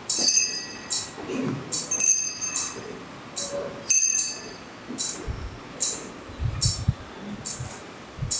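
Altar bells rung several times at the elevation of the host, each stroke ringing briefly. In the second half, a swung thurible takes over with metallic chain clinks and knocks about once a second.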